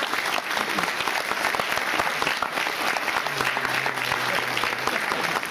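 Audience applauding, a dense steady clapping from a seated crowd.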